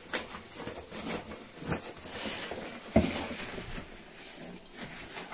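Rustling and scraping of a cardboard shipping box and its packing being handled and emptied, with a sharp knock about three seconds in.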